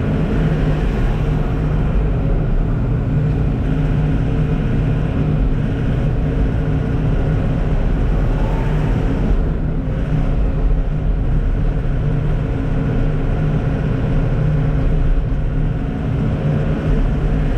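Sany SY95 excavator's diesel engine running steadily.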